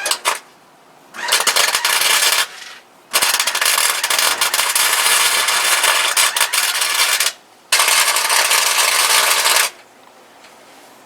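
Wire-feed (MIG) welder laying welds on sheet-steel floor panels: three runs of steady crackling arc noise, a short one, a long one of about four seconds, then one of about two seconds, with short pauses between.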